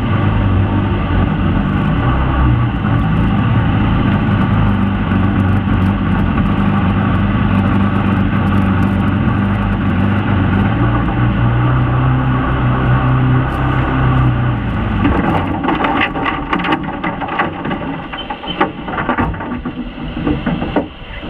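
Mini jet boat's Sea-Doo engine running at speed with a steady drone. About fifteen seconds in, the drone falls away, leaving irregular knocks and rushing water noise.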